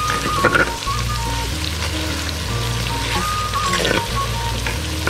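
Shallots, dried red chillies and curry leaves sizzling in hot oil in a clay pot, with a wooden spatula scraping through them as they are stirred. Soft background music plays underneath.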